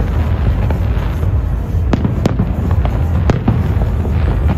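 Aerial fireworks bursting at a distance: a continuous low rumble of booms, broken by a handful of sharp cracks. The clearest cracks come about two seconds in and again about a second later.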